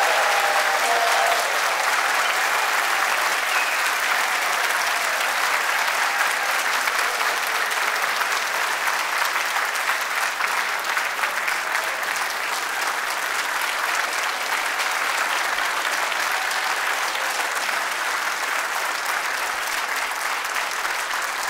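A large audience applauding, dense and steady, slowly tapering off.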